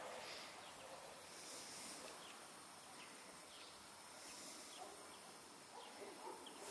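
Near-quiet outdoor ambience with faint, scattered short bird chirps.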